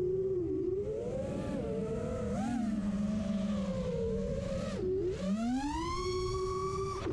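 FPV quadcopter's DYS SE2205 2300KV brushless motors and propellers whining, the pitch rising and falling with throttle. Just before five seconds in the whine dips, then climbs steeply to a high, held pitch.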